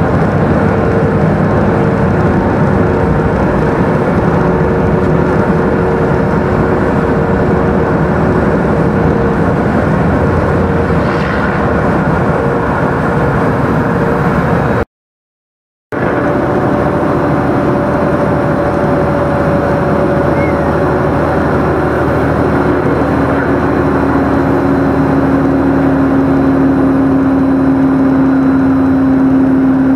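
Steady drone of a big truck's engine and road noise inside the cab at highway speed, breaking off for about a second halfway through.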